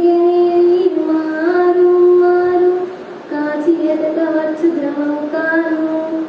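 A child singing a Telugu padyam (verse) unaccompanied, in long held notes that step between pitches, with a short breath break about three seconds in.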